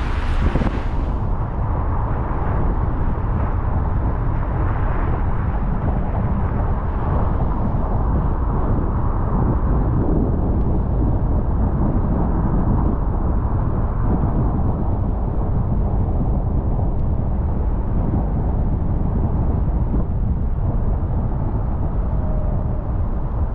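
A car driving, with a steady low rumble of road and engine noise. A brighter hiss drops away about a second in.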